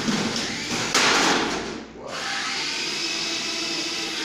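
Small battery-powered robot's electric drive motors whirring as it runs over a plywood ramp and drops onto the tile floor. There is a loud clatter about a second in, then a steady motor whine as it drives on.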